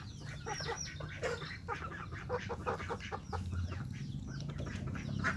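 A mongoose chewing mango, with many short wet clicks and smacks. Birds chirp and cluck in the background, with a few short falling chirps in the first second or so.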